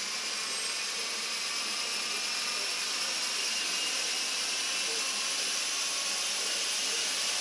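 Radio-controlled helicopter's motor and main rotor running on the spot, a steady whine over rushing air that grows slowly louder as the throttle is raised and the rotor makes more lift.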